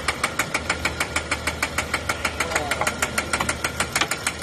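BMW N55 inline-six running with a loud, rapid metallic knock, about eight knocks a second, the result of being started without priming the oil circuit after an oil filter housing job.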